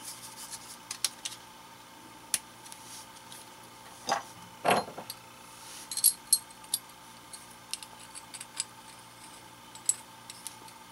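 Brass pipe fittings clinking and tapping as they are handled and threaded together: scattered sharp metallic clicks, with two louder knocks about four and five seconds in and a quick run of clicks soon after.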